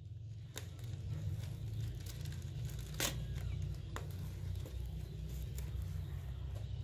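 Foil-faced bubble-wrap insulation crinkling and crackling under kittens' paws as they crawl and wrestle on it. There are scattered crackles, a sharp one about three seconds in, over a steady low hum.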